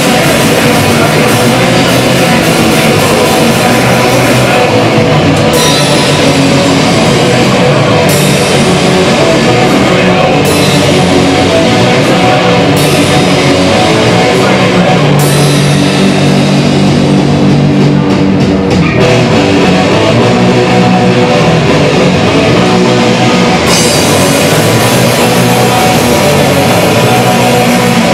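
Punk rock band playing loudly: a drum kit with cymbals and electric guitars.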